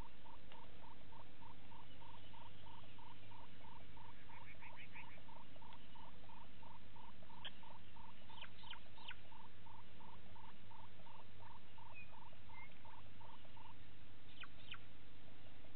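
An animal calling one short note over and over, about three times a second, which stops near the end, with a few sharp high chirps over it and a steady low hum under it.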